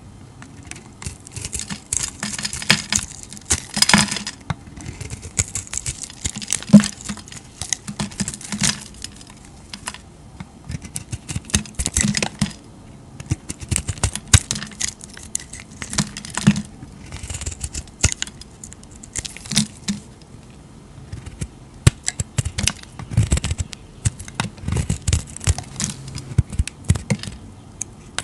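Snap-off utility knife blade shaving a bar of soap: a crisp crackling scrape with each stroke as curls and crumbs break away. The strokes come in runs with short pauses between them.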